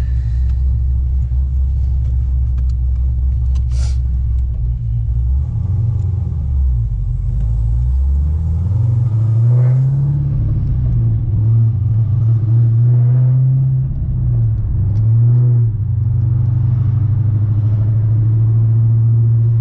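2010 Camaro SS's 6.2-litre V8 running under way, a low steady rumble that climbs in pitch as the car accelerates, drops back at each of several upshifts, then holds steady.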